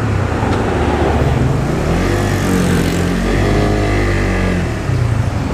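Suzuki GSX motorcycle engine pulling away and accelerating, its pitch rising and then falling in the middle, with wind rushing past the bike.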